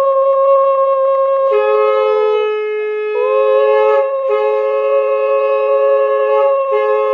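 Two conch shells (shankha) blown together as ritual blowing during a blessing. One holds a long steady note throughout; a second, lower note joins about a second and a half in, breaking off briefly for breath twice.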